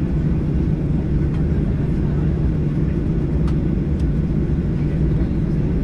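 Steady low rumble inside the cabin of a Boeing 737-800 before takeoff, even throughout, with a couple of faint ticks.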